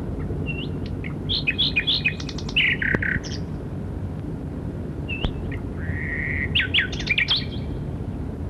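Common nightingale singing: two phrases of whistles and quick trills a few seconds apart, the second holding one long steady whistle, over a steady low hum.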